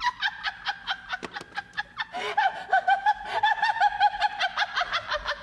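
A woman laughing hard in quick, high-pitched bursts. It is thinner at first and runs on in a dense stretch from about two seconds in.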